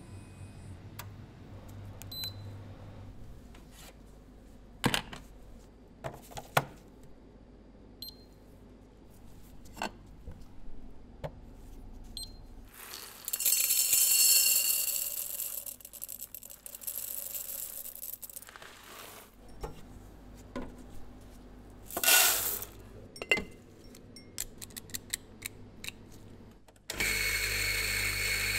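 Scattered clicks and knocks of coffee-bar work, then coffee beans poured rattling into a steel cup, and a short loud hiss. Near the end an electric coffee grinder's motor switches on and runs steadily.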